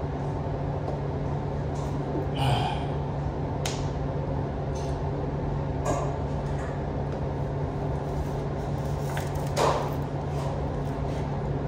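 Steady low room hum with a few short clicks and knocks scattered through it, from plastic water bottles being picked up, handled and opened on a table.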